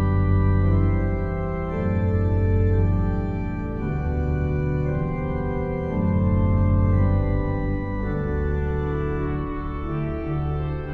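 Background music of sustained chords, changing about every two seconds.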